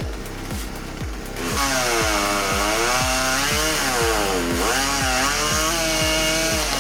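Chainsaw running at high revs from about a second and a half in, its pitch sagging in the middle as it loads up in the cut and then climbing back. Background music with a steady thumping beat underneath.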